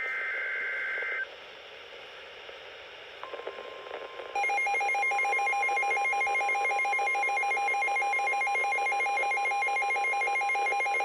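Opening of an Emergency Alert System alert: about a second of screeching two-pitch digital header data, then after a short gap a steady single alert tone comes in, joined about a second later by a loud, rapidly warbling electronic alarm tone that keeps sounding.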